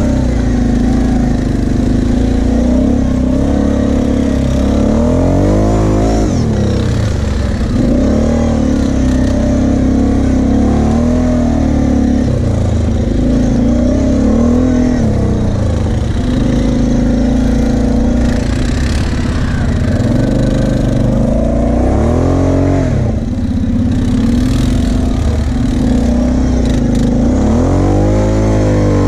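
Kawasaki KFX 700 V-Force quad's V-twin engine running under throttle, its revs rising and falling several times as it is driven over loose sand and up a sand hill.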